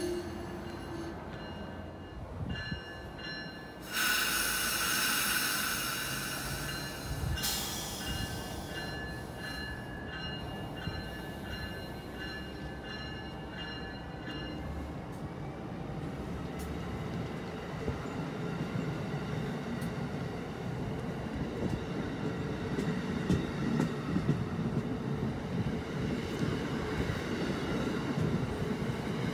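Amtrak Amfleet passenger coaches rolling along the platform, with thin high wheel squeal through the first half and a loud burst of hiss from about four seconds in. A steady rolling rumble builds over the second half.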